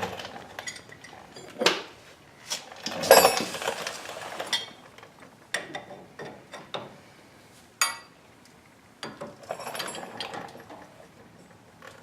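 A wrench working a steel jam nut tight against a new outer tie rod end: irregular metallic clicks, clinks and short scrapes of the tool on the nut, with one louder clank about three seconds in and a sharp click near eight seconds.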